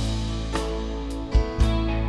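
Live rock band playing held chords on keyboard and guitar over a steady bass line, with kick drum and cymbal strokes. The clearest drum hits come about one and a half seconds in. There is no singing.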